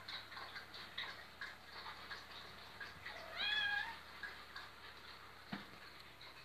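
A Maine Coon kitten meows once, about three seconds in: a single call under a second long that rises and then holds its pitch.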